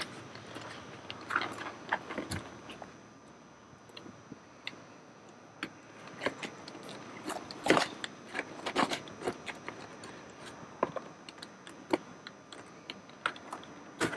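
Brittle arrowhead-style plastic tension clips being pried and pulled from a plastic console trim panel with a screwdriver and pliers: irregular clicks, snaps and crunches of plastic and metal tool, with two louder snaps a little past halfway.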